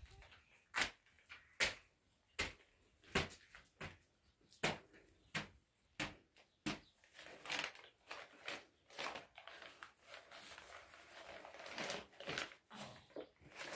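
Paper crackling and rustling as a baby handles and waves a paper packet. Sharp crackles come about every three-quarters of a second, then turn into denser rustling about halfway through.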